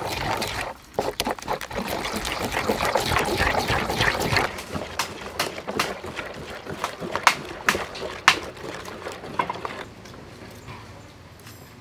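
A wooden spoon stirring thick, wet batter in a metal bowl: a continuous sloshing scrape for about four seconds. It gives way to a string of separate sharp clicks and knocks that thin out near the end.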